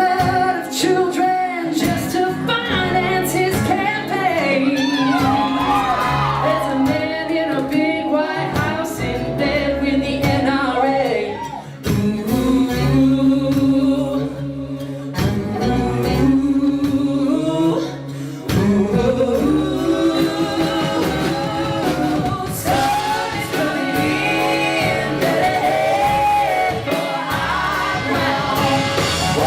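Live band music with singing: a rock song played on stage, with no clear lyrics.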